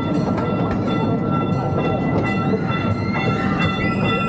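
Small amusement-park passenger train rolling along its track: a steady rumble of the cars with a continuous high-pitched whine over it.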